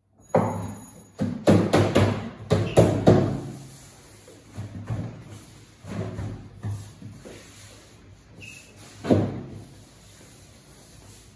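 Hammer blows and knocks on particleboard bed-frame parts as they are tapped together: a quick run of about eight loud knocks in the first three seconds, then a few scattered lighter knocks and one more loud one about nine seconds in.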